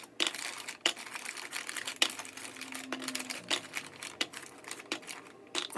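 Crinkly plastic bag of Sour Jacks sour candy being handled while pieces are picked out of it, with irregular sharp crackles.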